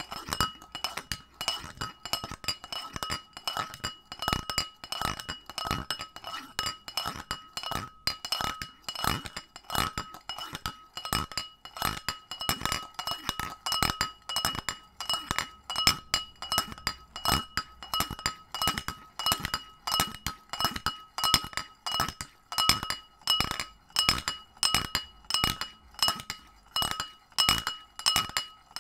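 Mobile phone knocking and clinking against the inside of a pint glass, over and over: a steady run of clinks, the louder ones about one or two a second with smaller taps between, and the glass ringing at the same pitch each time.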